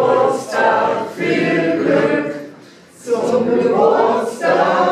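A group of party guests singing together without accompaniment, breaking off briefly about two and a half seconds in before the voices start up again.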